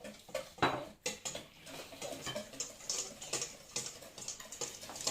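Quick, irregular clicks and taps of a utensil knocking against a mixing bowl as pancake batter is stirred.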